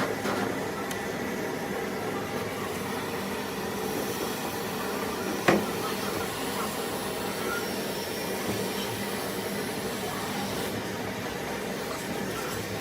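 Steady mechanical whirring from a running workshop machine, with one sharp knock about five and a half seconds in.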